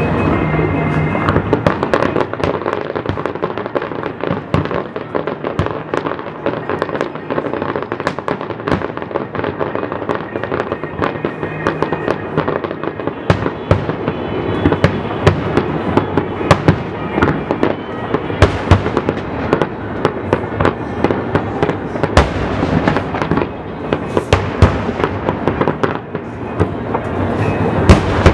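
Aerial fireworks shells bursting in a dense, continuous barrage of bangs and crackles. There is a short lull about 24 seconds in before the bangs pick up again near the end.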